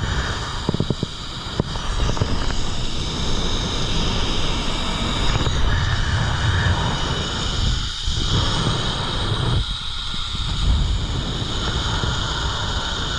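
Zip line ride: wind rushing over the microphone as a low rumble, with a steady high whine of the trolley running along the cable.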